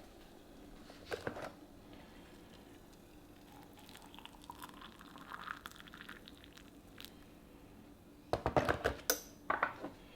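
Crockery being handled while making a cup of tea: a couple of light clicks about a second in, soft rustling in the middle, then a quick cluster of knocks and clatters with a sharp clink near the end, the loudest part.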